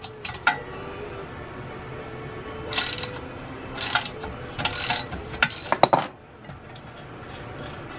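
Socket ratchet clicking as it turns bolts on an engine. There is a sharp click about half a second in, then four short bursts of ratcheting between about three and six seconds in, after which it stops.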